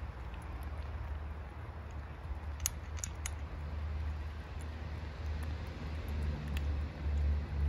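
Cats and kittens crunching dry kibble, with a few sharp crunches about three seconds in, over a steady low rumble.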